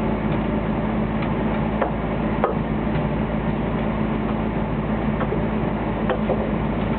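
Fishing boat's engine running with a steady hum, with scattered sharp clicks and knocks about five times.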